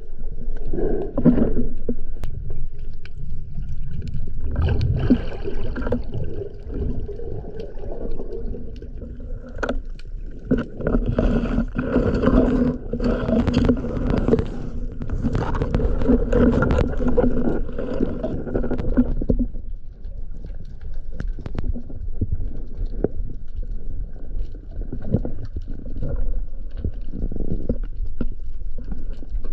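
Underwater sound picked up by a GoPro in its waterproof housing: a steady muffled rumble of water and the diver's movement, with a few sharp clicks. A low humming drone comes in around the middle for several seconds, then fades.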